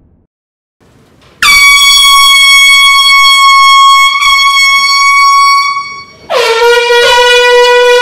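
Air horn blasts, loud: a long high-pitched steady blast starting about a second and a half in, then after a short break a second, lower-pitched blast near the end.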